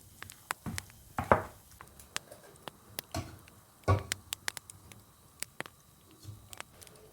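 Kitchen handling sounds: scattered light clicks and taps, with two louder knocks about a second and four seconds in.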